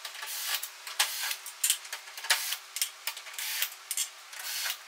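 Cordless drill-driver backing Torx T30 screws out of a pickup tailgate, in short irregular bursts.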